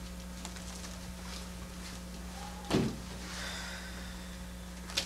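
Room tone with a steady low electrical hum. About three seconds in there is one short, sudden sound that drops in pitch, and a faint click near the end.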